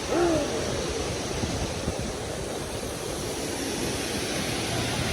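Steady rushing of Sezibwa waterfall, with a short voice sound about the first half second.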